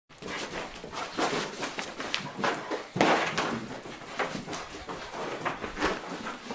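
Irregular running footfalls, scuffling and knocks as a pit bull and a person chase each other around a room, with handling bumps on the camera. A loud thump comes about three seconds in.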